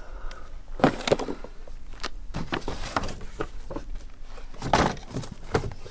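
Handling sounds of unpacking a lawn mower's box and parts: irregular knocks, clicks and rustles, loudest about a second in and again near five seconds in.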